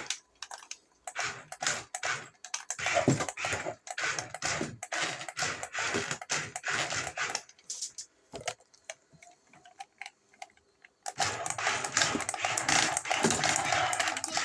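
Rapid, irregular clicking and clattering, dense for most of the first seven seconds, sparse for a few seconds, then dense again about eleven seconds in.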